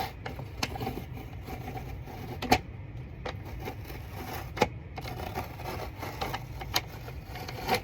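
Adhesive label being peeled off a cardboard box after warming with a blow dryer: irregular crackling and ticking of paper and glue pulling away, with a few louder snaps.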